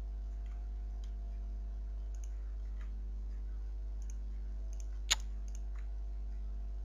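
Computer mouse clicking: one sharp click about five seconds in and a few fainter clicks, over a steady low electrical hum.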